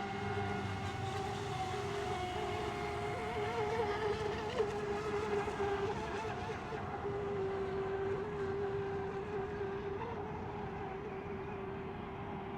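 Radio-controlled racing boats' motors buzzing steadily on the water, the high pitch wavering a little as the boats run.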